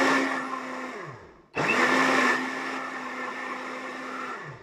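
Countertop blender running in two bursts, blending grated beetroot with orange. The motor spins down about a second in, starts again half a second later, and spins down again near the end.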